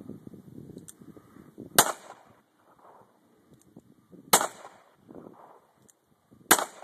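Three revolver shots fired one at a time, about two to two and a half seconds apart, each a sharp crack with a short echo.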